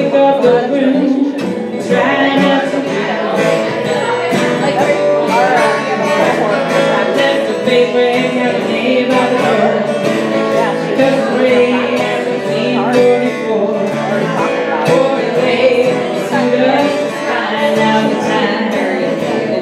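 A fiddle and a strummed acoustic guitar playing together at a steady pulse, with a woman singing over them.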